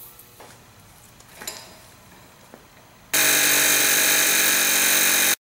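Impact wrench hammering steadily on the rear axle nut through a socket and extension, starting a little past halfway, running loud for about two seconds and cutting off suddenly. Before it, only faint handling sounds.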